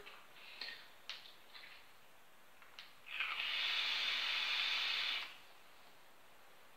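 Air hissing through a HellVape Dead Rabbit dripping atomizer during a long draw on a vape, the coil vaporising e-liquid. The hiss starts about three seconds in, holds steady for about two seconds and stops suddenly.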